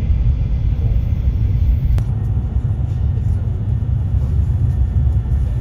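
Steady low rumble inside a moving Shinkansen passenger car.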